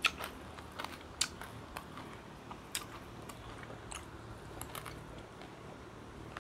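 A person chewing crisp fried dried seafood with rice, a string of irregular crunches at close range, the sharpest near the start and about one and three seconds in.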